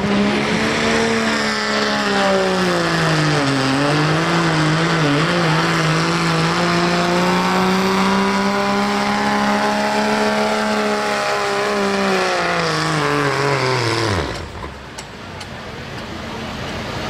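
Dodge Ram diesel pickup's engine running near flat out under full load while pulling the sled. Its note sags and wavers briefly about four seconds in, holds steady, then falls in pitch and drops away about fourteen seconds in as the pull ends.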